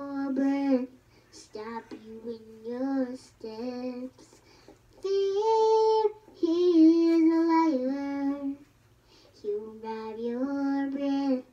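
A young girl singing a made-up song without accompaniment, in short phrases with pauses between, holding longer notes about five to eight and a half seconds in.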